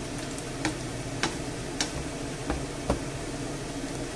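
Wooden spoon stirring pork chunks in tomato sauce in a frying pan while the sauce sizzles steadily, with a light click about every half second as the spoon goes round.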